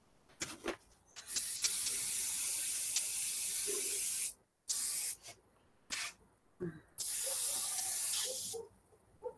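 Airbrush spraying a coat of paint in bursts of hiss: a long burst of about three seconds, a short one, then another of about a second and a half.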